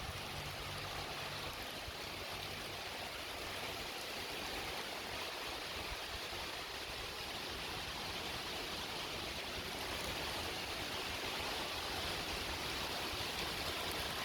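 Steady rain falling, an even hiss that grows a little louder toward the end.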